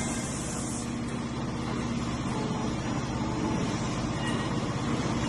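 Steady running noise of an automated machining cell, with machine tools and robots working and a faint steady hum beneath; a high hiss eases off about a second in.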